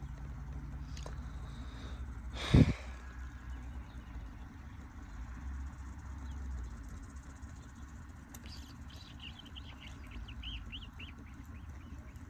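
Steady low outdoor rumble with a single loud thump about two and a half seconds in, and a few short bird chirps toward the end.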